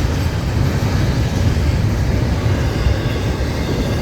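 Florida East Coast Railway freight train's empty intermodal cars rolling past, a steady low rumble of wheels on rail.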